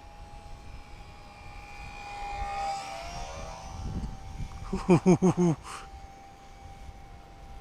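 Small electric RC plane's motor and propeller whining as it flies past, swelling and then dropping in pitch about three seconds in. Just after the middle come five quick, loud pitched pulses.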